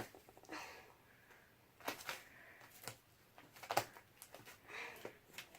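Homemade glue slime being handled: a few faint sticky clicks and pops, about two seconds in and again near four seconds.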